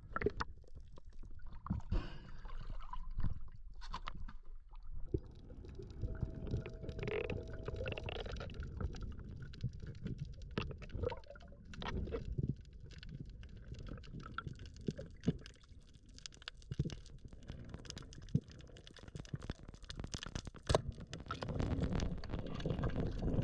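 Underwater sound picked up by a camera in its housing on a spearfishing dive: a low water rumble and gurgle, with many sharp clicks and crackles scattered through it. The rumble grows louder near the end.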